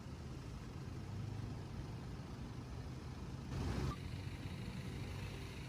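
A steady low engine hum, with a brief louder rush of noise about three and a half seconds in.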